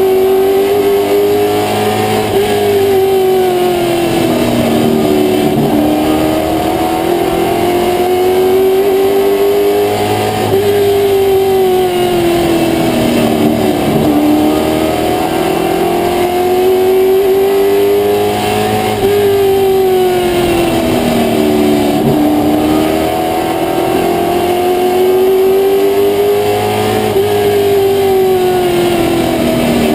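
Limited Late Model race car's V8 engine heard from inside the cockpit at racing speed. It revs up along each straightaway and falls off into each turn, about every eight seconds, four times over.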